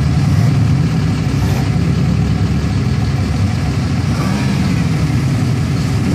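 Muscle cars with aftermarket performance exhausts pulling slowly past one after another, a deep, steady engine note that stays close to idle with slight rises in pitch.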